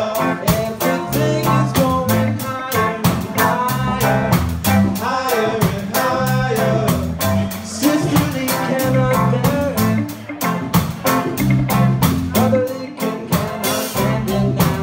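A band playing a song: guitar and bass over a quick, steady drum beat, with a voice singing.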